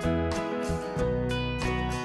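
Instrumental background music with plucked guitar notes and a steady bass.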